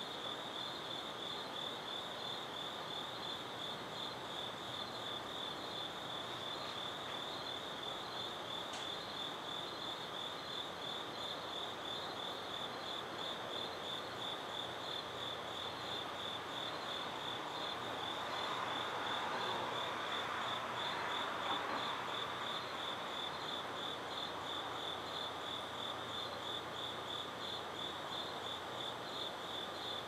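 Crickets chirping in a steady, evenly pulsing high trill over a constant background hiss. About two-thirds of the way through, a broad rush of noise swells and fades.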